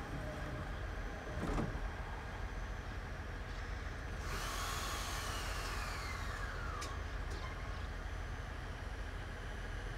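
JR East 209 series electric train pulling away from the station. About four seconds in a hissing whine starts suddenly, rises and then falls away over two seconds, over a steady rumble, with a single knock about a second and a half in.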